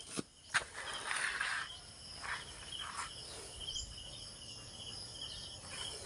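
Insects chirping in a steady, rapidly repeating pulse. There are a couple of light knocks and a brief rustle in the first two seconds.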